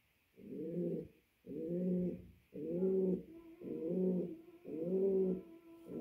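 Male pouter pigeon cooing, a run of low coos about one a second with short gaps between them: a cock bird calling his hen to mate.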